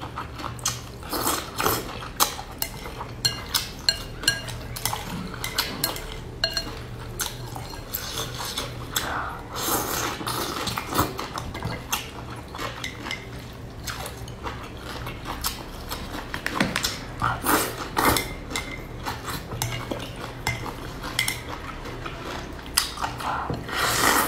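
Close-up eating sounds: wide flat noodles with cucumber slurped and chewed, with several longer slurps. Chopsticks click against the ceramic bowl throughout.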